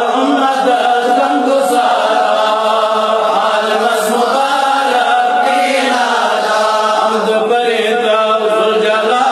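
A man chanting a religious recitation in a melodic voice, holding long sung lines that glide in pitch with few breaks.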